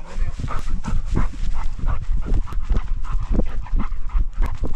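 Labrador retriever panting rapidly and steadily, about three breaths a second, right at the microphone of a camera worn on the dog.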